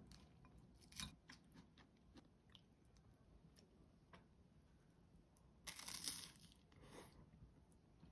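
Quiet eating sounds: crisp toast soaked in onion soup being bitten and chewed, with a few light clicks and a louder crunch about six seconds in.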